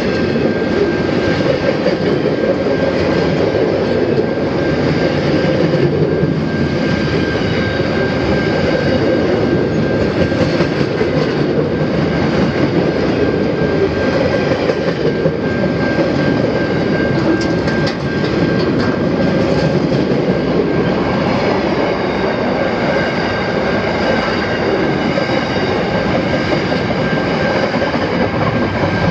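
Freight train wagons rolling past: a steady heavy rumble of steel wheels on the rails, with a thin steady high-pitched whine over it and a few short clicks in the middle.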